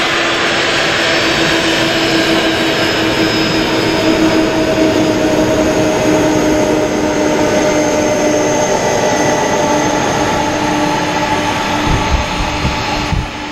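Boeing 747-400's four jet engines at takeoff thrust as the airliner accelerates down the runway, loud and steady, with whining tones that slowly fall in pitch as it moves away. A few low thumps near the end.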